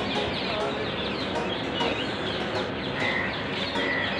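Many birds chirping at once, a dense chatter of short falling calls, over a steady background din.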